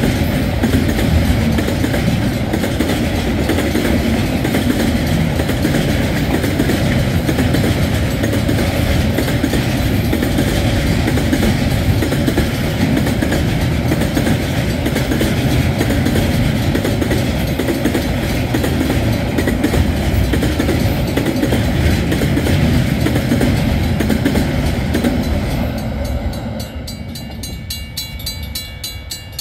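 A train passing over a level crossing, its wheels running steadily and loudly on the rails. About 26 seconds in, the train noise falls away, leaving the crossing's warning bell ringing at an even pace.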